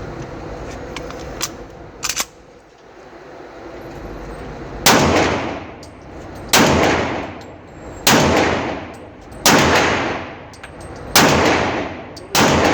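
Semi-automatic pistol fired six times at a steady pace, about one shot every one and a half seconds, each shot with a ringing echo that dies away. A couple of faint sharp clicks come first, about two seconds in.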